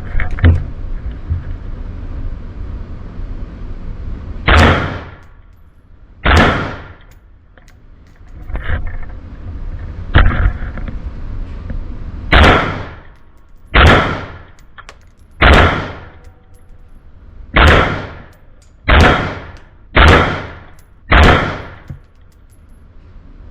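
Ruger AR-556 semi-automatic 5.56 rifle fired in slow single shots, about ten sharp cracks one to two seconds apart, each with a short ringing tail.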